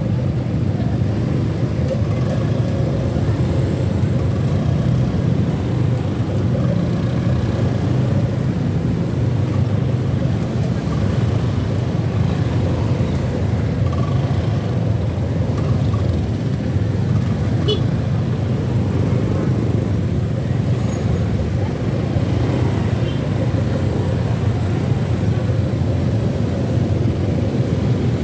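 Motorcycle and scooter engines running in a slow, jammed traffic queue: a steady low hum.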